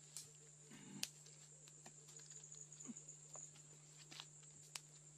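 Near silence: faint outdoor ambience with a steady low hum and scattered small clicks and ticks, the sharpest about a second in and near the end.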